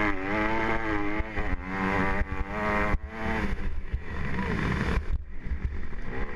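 A 250cc motocross bike's engine, heard from the rider's helmet, revving hard with its pitch climbing and breaking off about once a second as the throttle is chopped and gears change, then easing off near the end, over a rush of wind.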